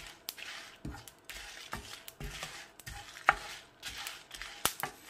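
Whole spices (coriander seed, cumin, fennel and dried red chillies) roasting in a pan as they are stirred, with irregular sharp pops and crackles as the seeds pop. The popping is the sign the masala is roasted enough.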